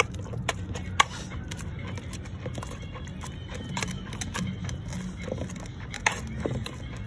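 A spoon mashing and stirring thick potato-and-eggplant chokha in an aluminium pressure-cooker pot. It knocks and scrapes against the pot's sides and bottom in irregular sharp taps, a few clearly louder, over a low steady hum.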